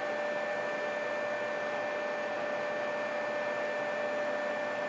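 Steady background noise: an even hiss with a constant thin electrical whine underneath, unchanging throughout.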